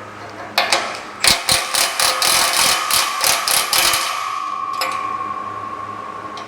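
A wrench working a nut and bolt on a galvanized steel rack, giving a run of sharp metallic clicks and rattles, about five a second, that stops about four seconds in. A steady ringing tone from the steel carries on after the clicks and fades out near the end.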